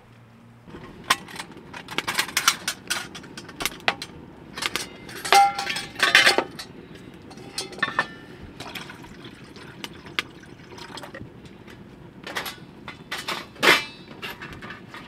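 Stainless steel pots and a metal plate clinking and knocking as they are handled on a wooden table, a few strikes ringing briefly.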